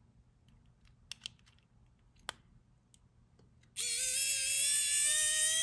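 Electric precision screwdriver backing out a small screw from a watch's steel caseback. A few light clicks come first as the bit is seated in the screw head. About two-thirds of the way in the motor starts, with a steady whine that creeps slightly up in pitch.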